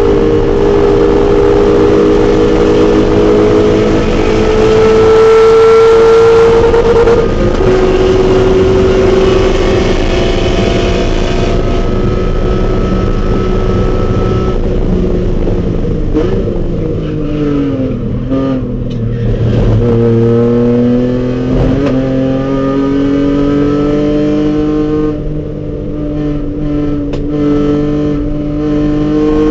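BMW E46 M3's S54 inline-six under hard acceleration on track, pitch climbing through a gear with an upshift about seven seconds in. About halfway through it comes off the throttle and the pitch falls through braking and downshifts, then it climbs steadily again under full throttle.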